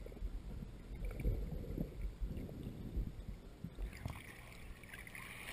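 Muffled underwater sound picked up by a GoPro held below the surface: low thumps and rumbling water movement. About four seconds in the camera comes up into the air and the water turns to clearer, brighter splashing and sloshing at the surface.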